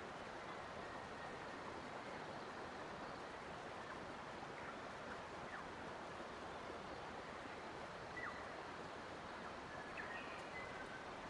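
Steady rush of flowing water, with a few faint, short bird chirps about eight seconds in and again near the end.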